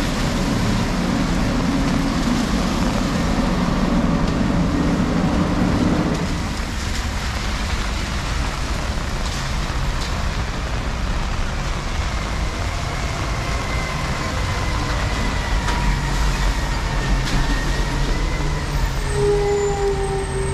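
Steady heavy rain with city traffic on a wet street. A large vehicle's engine runs loudly for about the first six seconds, then stops abruptly. Faint steady tones come in during the second half.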